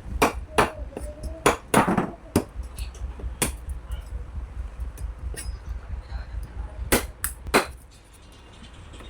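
A heavy blade chopping on wood: sharp, irregular strikes, a quick run of them in the first few seconds, then a pause, then three more near the end.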